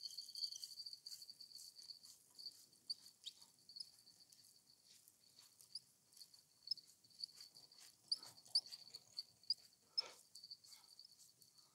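Faint fishing reel being wound in to retrieve the bait: a steady high-pitched whine with many small, irregular clicks, a few louder ones about eight and ten seconds in.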